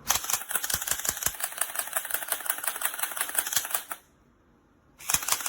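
Elite Force HK P30 electric blowback airsoft pistol firing on full auto: a fast, even rattle of plastic clacks from the motor-driven blowback slide. One burst lasts about four seconds, and a second burst starts after a short pause.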